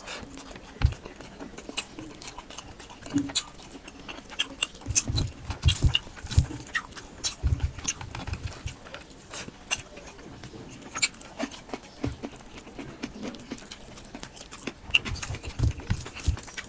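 Close-miked eating sounds: chewing and lip-smacking of mouthfuls of food, a steady run of irregular wet clicks with low thuds in between.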